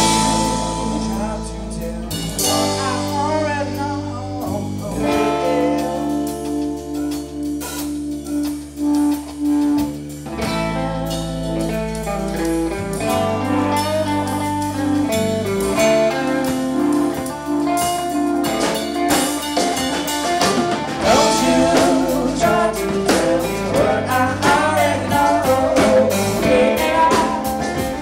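Band music with guitar, bass and drums playing a steady beat.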